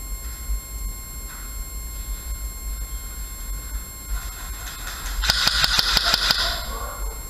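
Airsoft electric rifle firing one quick full-auto burst of about ten shots, roughly eight a second, lasting just over a second about five seconds in, over a low steady rumble.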